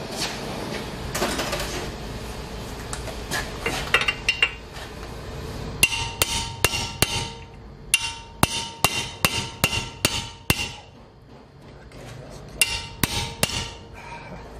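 A hammer striking the steel steering knuckle to free the lower ball joint on a Ford Freestyle's front suspension: three runs of sharp metal-on-metal blows, about three a second, each ringing briefly.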